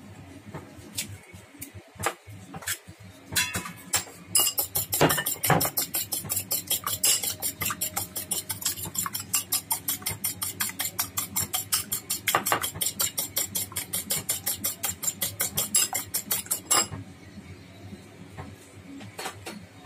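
A metal fork beating egg in a ceramic bowl: a fast, even clinking of the fork against the bowl, about five strikes a second, starting about four seconds in and stopping near the end. A few separate taps come before it.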